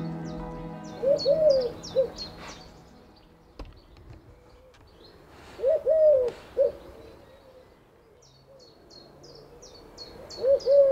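A bird calling a repeated low hooting phrase, 'woof woof woof', three notes at a time, three times about four and a half seconds apart. A small songbird's quick high chirps come at the start and near the end.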